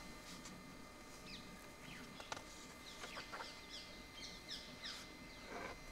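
Animal calls: many short, high-pitched chirps that each fall in pitch, coming in quick succession and more often in the second half, with one sharp click a little over two seconds in.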